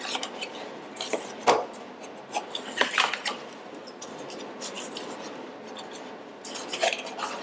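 A small cardboard box being opened by hand: the inner box scraping and rubbing as it slides out of its cardboard sleeve, with several sharp rustles and taps of card.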